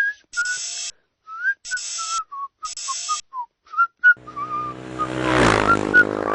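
Someone whistling a short, meandering tune of brief gliding notes, broken three times in the first few seconds by short bursts of hiss. From about four seconds in, a low hum with many overtones comes in under the whistling and grows steadily louder.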